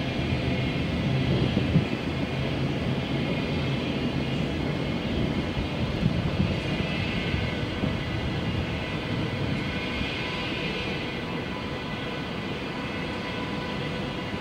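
DB class 101 electric locomotive hauling Intercity coaches slowly over a steel railway viaduct: a steady rolling rumble with faint steady high tones above it.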